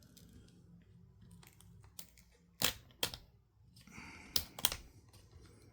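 Plastic pry tools working a laptop screen bezel loose from its clips: four sharp plastic clicks, two about halfway through and two more close together a little later, over a faint low hum.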